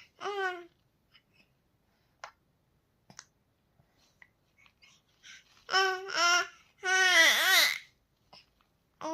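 A three-month-old baby cooing: one short coo at the start, a few seconds of quiet with faint clicks, then two short coos and a longer, louder coo with a wavering pitch about seven seconds in.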